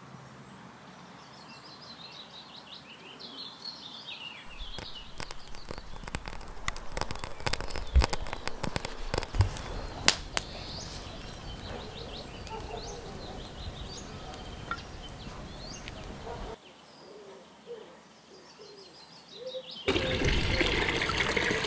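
Birds chirping, then a wood fire crackling with many sharp snaps for about twelve seconds. Near the end, whey pours from a jar into an iron pot with a loud, steady splash.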